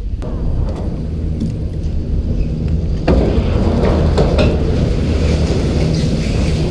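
Chairlift running with a steady low mechanical hum that gets louder about three seconds in as the chair passes into the top station. Scattered clicks and knocks from the chair and the station run through it.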